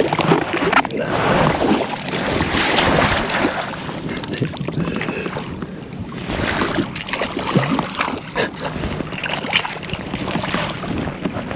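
Wind buffeting the microphone on an open fishing boat, a rushing noise that swells and dies back in gusts.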